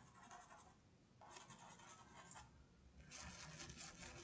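Faint scratchy swishing of a paintbrush stroking paint onto cotton fabric, in three short spells, the last starting about three seconds in.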